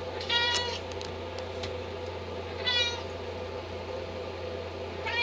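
Bengal kittens meowing: three short, high-pitched meows about two and a half seconds apart, over a steady low hum.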